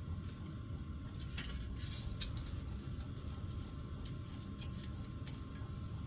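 Light metallic clicks and taps of sheet-metal repair pieces being handled and lined up against each other, scattered irregularly from about two seconds in, over a steady low rumble.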